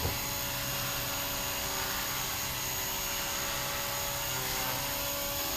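Blade Fusion 180 electric RC helicopter running at a steady head speed: the motor and rotors give a steady high whine.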